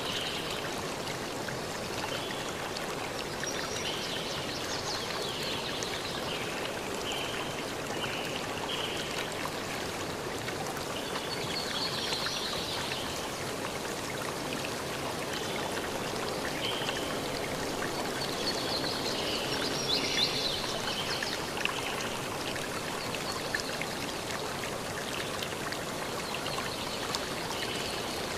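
Steady rushing of flowing water like a stream, with brief high chirp-like sounds now and then.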